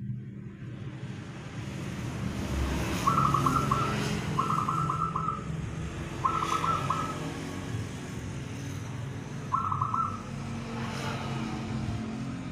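Zebra dove (perkutut) cooing: four short phrases of quick, rippling coos, spaced a couple of seconds apart, over a steady low background hum.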